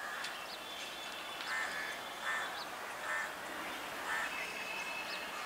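Crows cawing, about four harsh calls spaced under a second apart, over small birds chirping.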